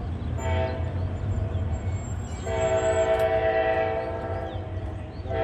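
Locomotive air horn on an Amtrak passenger train sounding at a grade crossing: a short blast about half a second in, then a long blast of about two seconds, then another blast starting near the end, over a steady low rumble.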